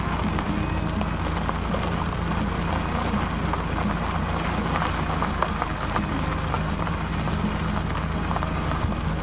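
Steady wind noise on the microphone over a low, steady hum, with light crackling.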